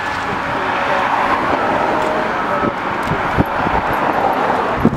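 Road traffic going past, a loud rush of vehicle noise that swells about a second in and again near four seconds, with a few knocks from the handheld phone.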